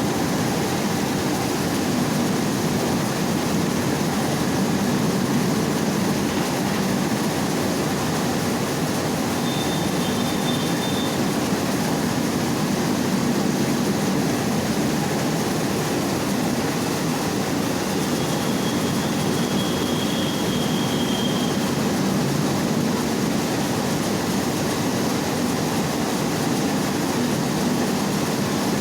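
Mini rice milling machine running steadily, an even, continuous mechanical noise with no change in speed.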